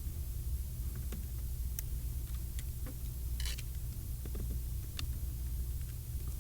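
Faint scattered clicks and a short rustle of a cable harness and its plastic connector being handled and tucked under restraints inside an ATM cabinet, over a steady low hum.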